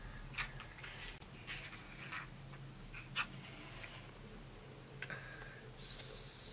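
Faint clicks and scrapes of a matchbox and matches being handled and a match struck to light a kerosene hurricane lantern, with a sharp click about three seconds in and a brief hiss near the end.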